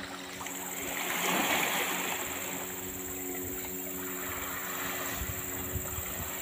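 Small waves washing onto a sandy beach, with a swell of surf about a second in, over a steady low hum.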